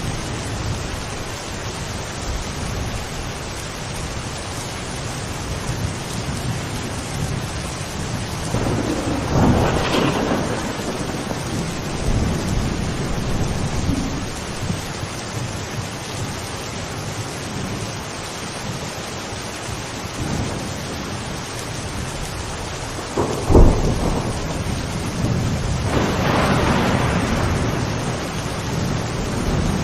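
Steady rain falling, with thunder: a rumble swells up about a third of the way in, then a sharp crack about two-thirds through, followed by a longer rolling rumble.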